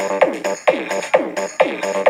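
Electronic dance music: a fast, repeating beat of about four hits a second, with short falling synth tones on each hit.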